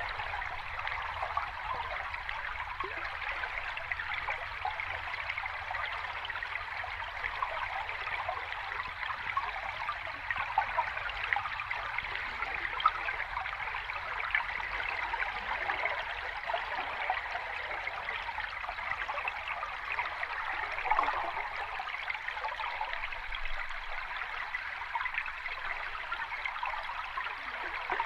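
Water running over rocks in a small cascade, a steady splashing babble with a few slightly louder splashes.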